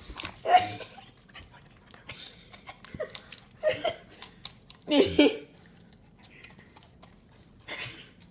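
A dog giving short, sharp barks, four of them spaced one to three seconds apart.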